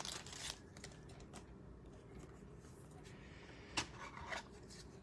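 Faint rustling and light clicks of trading cards being handled and flipped through, with one sharper tap a little before four seconds in.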